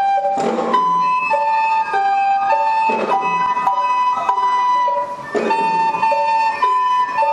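Children's descant recorders playing a simple melody together in held notes, with mallet percussion. A heavier beat comes about every two and a half seconds.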